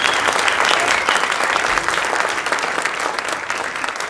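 Audience applauding after a speech, a dense patter of many hands clapping that is loud at first and slowly dies down.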